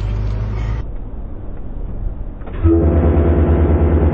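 Vehicle-mounted train horns blast a loud, steady multi-note chord starting a little under three seconds in. Before it, a vehicle's engine runs.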